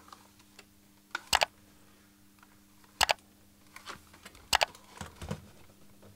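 Plastic clicks and knocks from an Amstrad NC100 notepad computer's case and keys as it is handled and turned over onto a silicone work mat. There are sharp double clicks about every second and a half, then softer knocks near the end.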